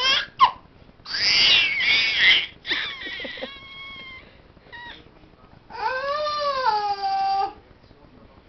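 A baby vocalizing: a string of high-pitched squeals and calls with short pauses between them. The loudest squeal comes about a second in, and a long wavering call of nearly two seconds comes near the end.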